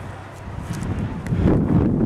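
Wind buffeting a handheld camera's microphone: an uneven low rumble that swells about a second and a half in.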